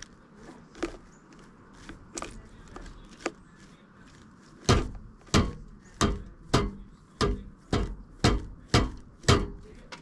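Pileated woodpecker pecking at a wooden platform feeder: a few scattered knocks, then about halfway through a run of nine heavy, evenly spaced knocks, a little under two a second.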